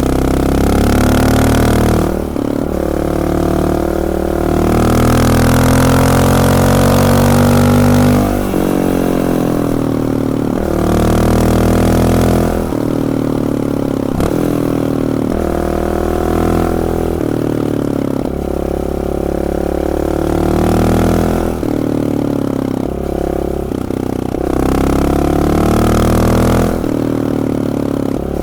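Honda XR650L's single-cylinder four-stroke engine running through a Big Gun aftermarket exhaust, revved again and again from idle, its pitch sweeping up and falling back each time.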